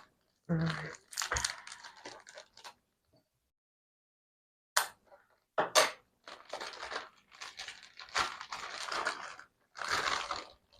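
Packaging crinkling and tearing in irregular bursts as a rolled-up bag strap is unwrapped by hand.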